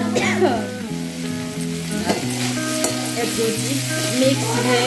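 Mixed vegetables sizzling in oil in a kadai as a flat spatula stirs them and scrapes them across the pan.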